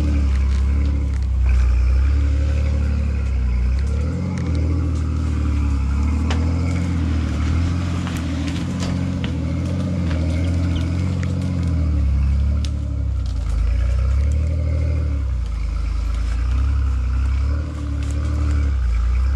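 Engine of a Nissan-based rock-crawling rig running at low revs under load as it crawls a rocky trail, its pitch rising and falling with the throttle, with occasional clicks and knocks.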